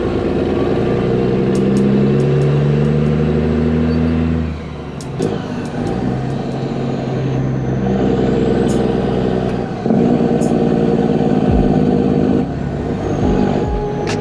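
Dump truck's diesel engine running as the truck drives, its note holding steady and then changing abruptly a few times.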